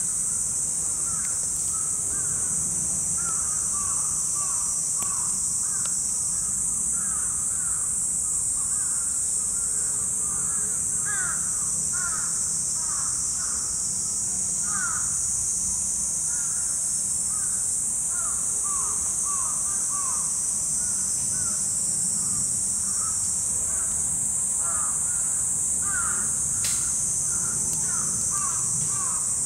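Crows cawing repeatedly in short calls throughout, over a steady high-pitched hiss.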